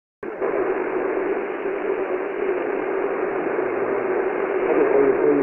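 Shortwave radio receiver hiss and static on a weak AM signal, starting abruptly and running steadily, with a faint voice beginning to come through near the end.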